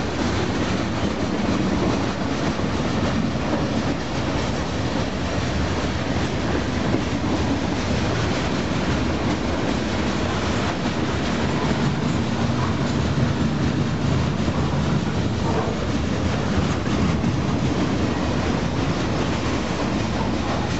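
Freight train cars rolling steadily past: a continuous rumble of steel wheels on rail, with clicking as the wheels cross the rail joints.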